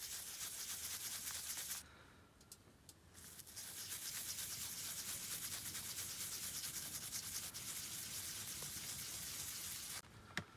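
Zoic PalaeoTech MicroRaptor air scribe buzzing with a high hiss as its vibrating stylus chips hard limestone matrix off a pyritised Dactylioceras ammonite. It runs for about two seconds, pauses briefly, then runs steadily for about seven seconds before cutting off, with a sharp click near the end.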